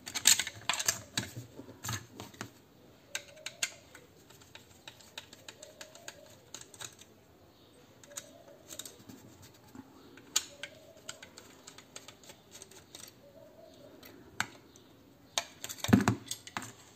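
Screwdriver clicking and scraping against the screws and plastic housing of an electric hair clipper being taken apart, with small metal parts tapping. The clicks come irregularly, thickest at the start, with a louder cluster of knocks about a second before the end.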